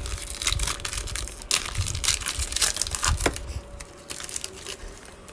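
Foil trading card pack wrapper being torn open and crinkled by hand. There is dense crackling for about three and a half seconds, then it quiets.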